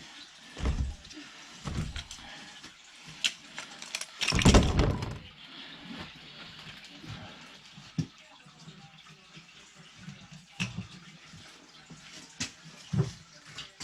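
Water running and splashing at a sump pump's discharge plumbing while its check valve is being replaced, with scattered knocks and clunks of handling, and one loud rushing splash about four seconds in.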